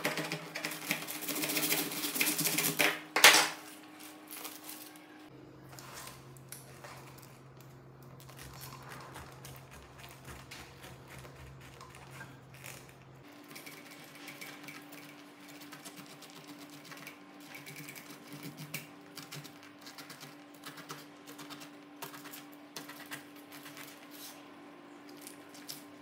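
Kitchen knife sawing lengthwise through a whole pineapple's rind and core on a bamboo cutting board, a loud rasping crunch that ends in a sharp crack a little over three seconds in. Then quieter, scattered crisp clicks and crunches as the knife tip scores the pineapple flesh and taps the rind.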